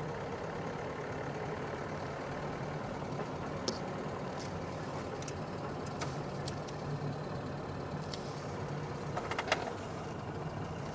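Steady car engine and tyre noise heard from inside the cabin of a car driving along a city street, with a few short clicks, the sharpest near the end.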